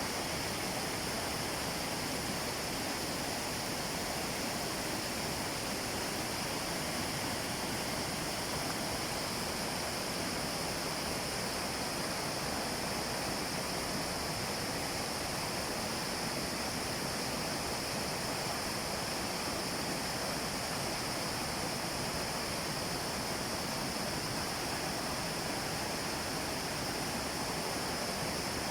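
Steady rushing of a waterfall, an unbroken wash of water noise at an even level.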